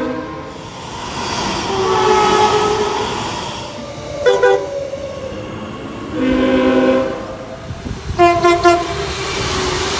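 A locomotive air horn sounding a chord of several notes in a series of blasts over the train's running noise. There is a long blast about two seconds in, a short one about four seconds in and another long one around six seconds, then a few quick short toots running into a held note near the end.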